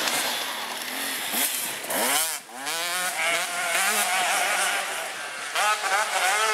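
Motocross bike engine revving as it climbs a dirt track, its pitch rising and falling with throttle and gear changes. About two seconds in, the revs drop sharply and then climb again.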